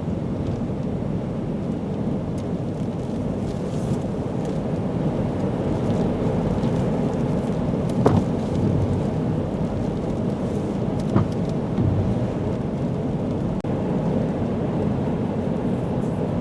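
Storm-force wind and heavy lake surf making a steady low roar, with two short sharp knocks about eight and eleven seconds in.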